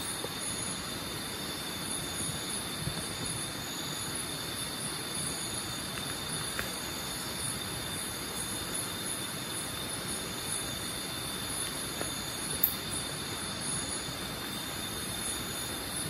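Nighttime chorus of insects in the tropical forest, a steady high-pitched ringing trill with a faster pulsing buzz above it. A single sharp click sounds about three-quarters of the way through.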